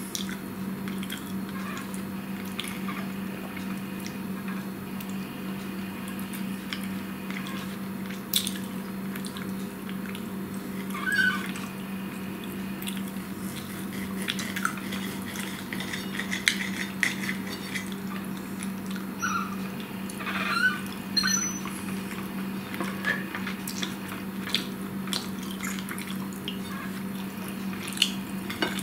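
Knife and fork clicking and scraping on a plate now and then as meat is cut, with a few brief squeaks, over a steady low hum.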